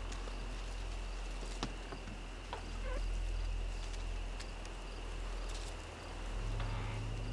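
Outdoor ambience: a steady high insect drone over a low rumble, with a few faint scattered clicks.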